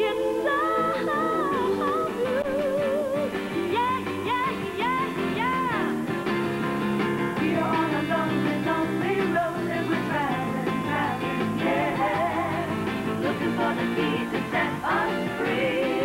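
Female vocal trio singing a pop-soul number over band accompaniment, the voices wavering with vibrato.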